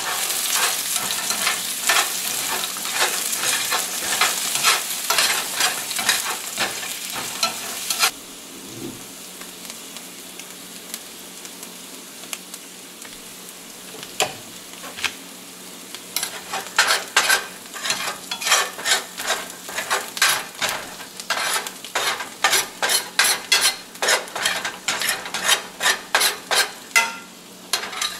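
Sliced carrots, parsnips and garlic sizzling in a metal frying pan while metal tongs stir and scrape them against the pan. About eight seconds in the sound drops suddenly to a quieter sizzle, then the tongs start again with quick clicks on the pan about twice a second.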